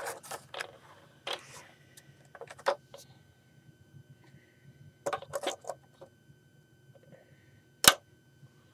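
Plastic Lego pieces and built models clicking and knocking as they are handled and set down on a plastic stand, in several small bunches. There is one sharp, louder click near the end.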